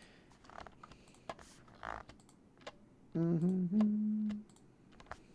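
Scattered computer mouse and keyboard clicks. About three seconds in, a short hummed voice sound, first gliding and then holding one steady note for about a second, is the loudest thing.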